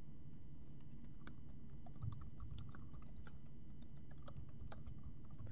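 Computer keyboard typing: faint, irregular keystrokes starting about a second in, over a steady low background hum.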